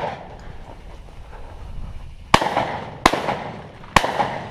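Three shotgun shots, a little under a second apart, starting a little after two seconds in, each with a short echoing tail; the ringing tail of a shot fired just before fades out at the start.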